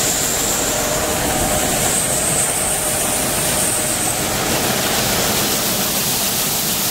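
Grain bag extractor running steadily under power, its augers drawing grain out of the bag and pouring it into a semi's hopper trailer, with a thin high whine that stops about four seconds in.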